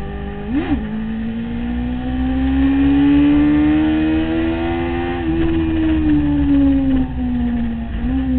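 Sport motorcycle engine heard from onboard at speed: a quick throttle blip just after the start, then the engine pitch climbing steadily under acceleration for about four seconds before falling as the throttle is rolled off, with another short blip near the end. Wind rushes steadily underneath.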